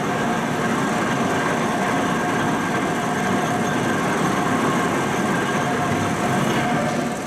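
Railway train in motion: a steady mechanical running noise with a few faint steady tones in it, dropping slightly near the end.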